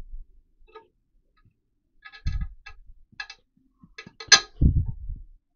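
Scattered light metallic clicks and clinks with a couple of dull knocks, from hand work at the spindle and tooling of a milling machine whose spindle is not running.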